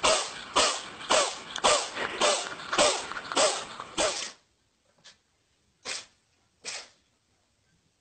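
Domestic cat sneezing in a rapid run of about eight sneezes, roughly two a second, which stops abruptly a little after four seconds in. Three shorter, quieter sneezes follow, about a second apart.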